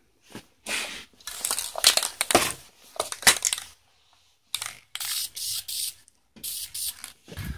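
Aerosol spray-paint can spraying a coat of paint in several short bursts of hiss with brief pauses between them.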